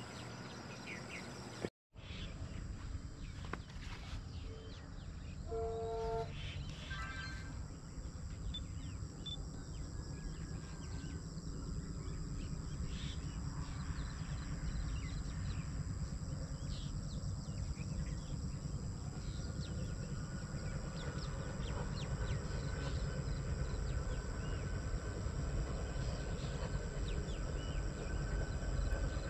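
Open-country ambience: a low rumble that slowly grows louder, scattered bird calls, and a brief pitched tone about six seconds in.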